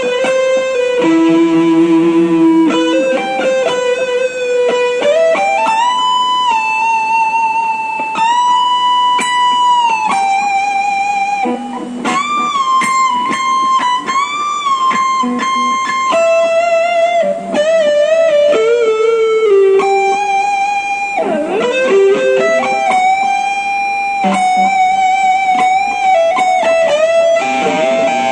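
Gibson Les Paul Supreme electric guitar played as a slow lead line. Its single notes are held for a second or two, with string bends gliding up and down and vibrato on the sustained notes.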